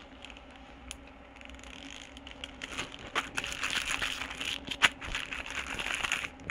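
Plastic zip-top bag rustling and crinkling under the hands as the air is pressed out and the bag is smoothed flat over a steak in pineapple purée, with a few sharp clicks. Faint at first, the crinkling gets louder and busier after about two seconds.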